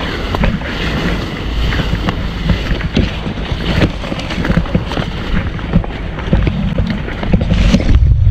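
Wind buffeting the microphone in a heavy low rumble, with leaves and branches rustling and crackling as someone pushes through dense bushes.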